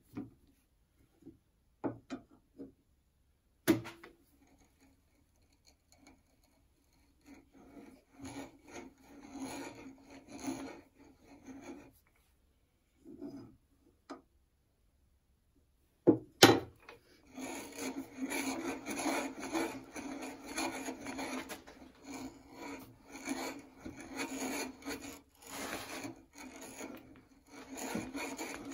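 Hand brace turning an auger bit into a wooden block, the bit's cutters shaving wood with a rasping, crunching scrape. A few sharp knocks early on and a loud one about halfway, then short spells of boring give way to steady, continuous boring in the second half.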